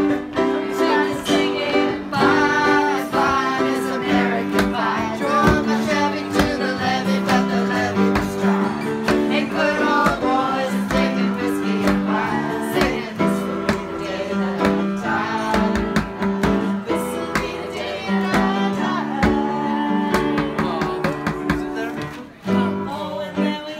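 Upright piano played with a group of people singing along, a song with held chords and several voices.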